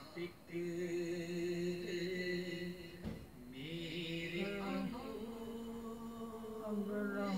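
A single voice chanting slowly in long held notes, the pitch stepping and wavering between them, with a short break about three seconds in.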